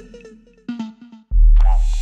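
Electronic background music: a few sparse plucked notes fade to a short gap, then a loud, deep bass comes in about two-thirds of the way through.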